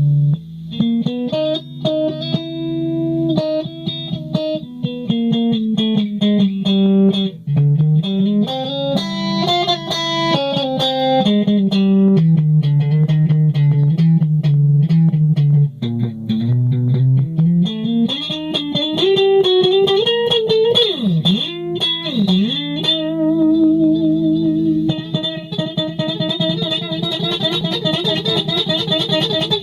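Solo electric guitar improvising: lines of single notes climbing and falling over a held low note, with two deep swoops down and back up in pitch about two-thirds of the way through, then fast wavering notes near the end.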